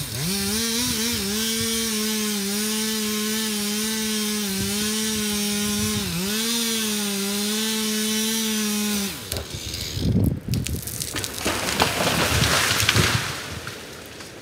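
Two-stroke chainsaw running at full throttle in a felling cut at the base of a tree, dipping briefly under load a few times, then stopping about nine seconds in. The tree then cracks and crashes down through the surrounding branches, and the sound trails off into a soft hiss of falling snow.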